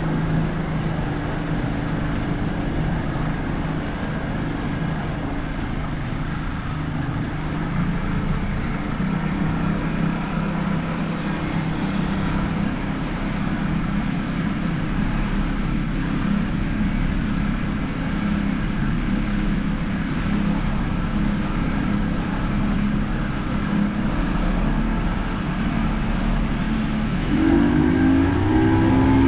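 Motorboat engine running steadily, its hum wavering slightly in pitch. Near the end it rises in pitch and gets louder as the throttle opens.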